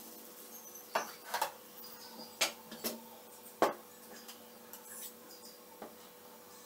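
Steel ladle clinking and tapping against a dosa tawa while dosa batter is spread, about six sharp, irregularly spaced knocks over a faint steady hum.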